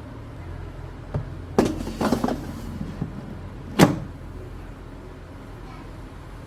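A few sharp knocks and a short clatter over a low steady hum, the loudest knock about four seconds in.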